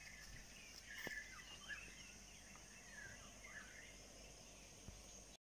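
Faint outdoor ambience: a handful of quick bird chirps over a steady high insect drone. The sound cuts out abruptly near the end.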